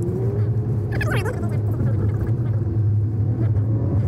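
Truck driving on a gravel road, heard from inside the cab: a steady low rumble of engine and tyres. A brief higher-pitched gliding sound rises over it about a second in.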